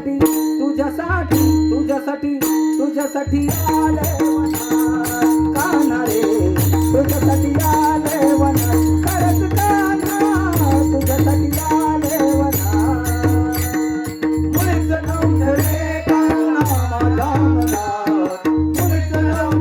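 Instrumental interlude of a Marathi devotional song. Under a held drone note and a pulsing bass beat, busy Indian-style percussion plays quick, even strokes while a melody line winds above.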